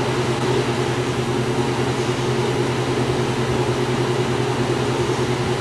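A steady low hum with an even hiss over it, unchanging throughout, with no distinct events.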